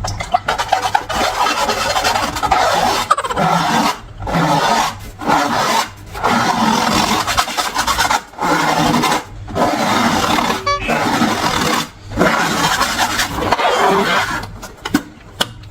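Long rubber balloons rubbed and squeezed by hand, a rasping rub in stretches of one to two seconds broken by short pauses.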